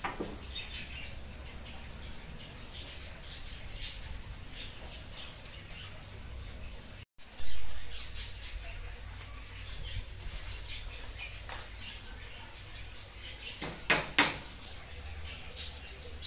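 Outdoor background of scattered bird chirps over a steady low hum. In the second half a steady high, thin tone runs for several seconds, and a few sharp knocks sound near the end.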